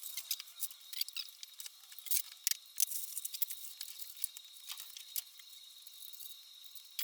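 Irregular sharp clicks and light metal taps of hand tools and small parts being handled, several a second, densest a couple of seconds in, over a faint steady high whine.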